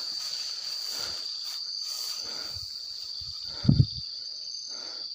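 Crickets chirring in a steady, high, unbroken drone. About three and a half seconds in come two quick, dull low thumps, louder than the insects.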